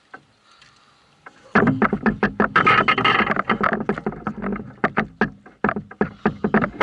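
Fishing gear knocking and rattling against a canoe as it is handled: quiet at first, then from about a second and a half in a rapid, irregular run of sharp knocks and clatter.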